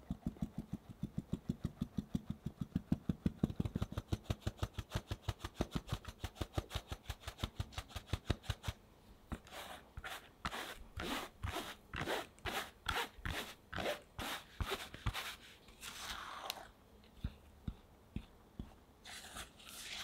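Fine-mesh sieve being tapped rapidly, several light taps a second, as cake flour and corn starch shake through the mesh into a glass bowl. About nine seconds in the tapping gives way to slower, scratchier strokes about twice a second as the sieve is shaken. Near the end a spatula starts scraping through the flour in the bowl.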